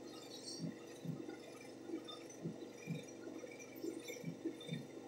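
Faint, soft thuds and rubbing about twice a second as fingertips massage a facial treatment upward over the face.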